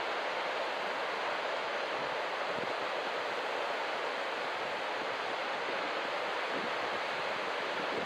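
Ocean surf breaking and washing along a beach: a steady, even rush of noise with no single crash standing out.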